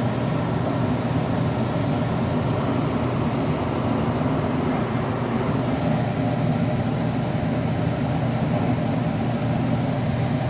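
Goodman gas furnace running through a normal heating cycle after repair: burners lit and the circulation blower running, a steady rushing hum.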